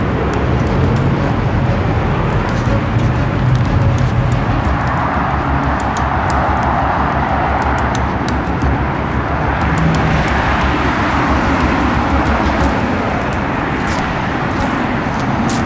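Steady noise of freeway traffic, with a heavy low rumble. Scattered light crunching clicks run through it, fitting footsteps on dry mulch and leaves.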